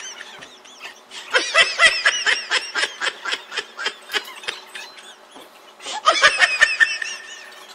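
High-pitched laughter, giggling in quick pulses of about five a second: one long run from a second or so in, and a shorter burst a little before the end.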